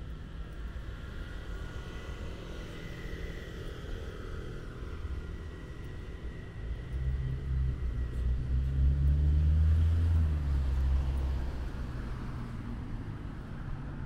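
Steady low traffic rumble, with a motor vehicle passing along the road: its engine grows louder from about halfway through, is loudest about two-thirds of the way in, then fades.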